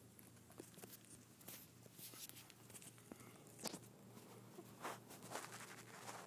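Near silence: a handful of faint, short rustles and scuffs of fabric scattered through, over a low steady hum, with no whimpering.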